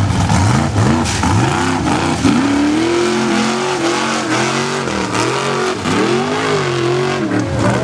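Formula Offroad buggy's engine revving hard, its pitch rising and falling over and over as the throttle is worked to climb a steep gravel wall, with scattered sharp clatters.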